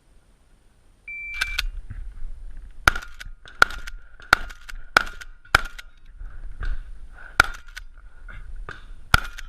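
An electronic shot-timer start beep about a second in, then a string of about nine gunshots fired in quick succession, mostly spaced under a second apart, as the shooter engages targets on a practical-shooting stage.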